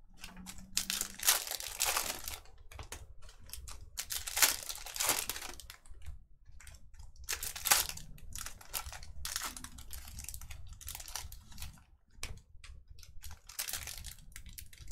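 Panini NBA Hoops basketball card packs being torn open, their wrappers crinkling and rustling on and off.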